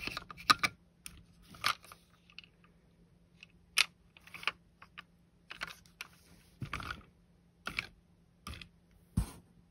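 Irregular plastic clicks and taps as fingers handle a plastic toy car and its chrome engine piece.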